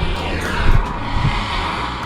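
Background music with a steady, heavy bass beat and a swept whoosh gliding down in pitch early in the passage.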